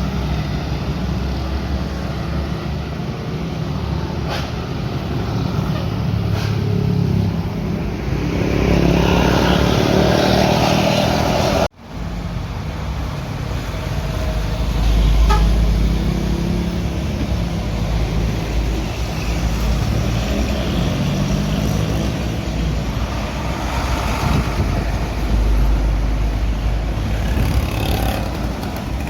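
Large diesel buses driving up a steep hill, engines running hard under load as they pass close. The sound cuts off abruptly about twelve seconds in and picks up again with another bus.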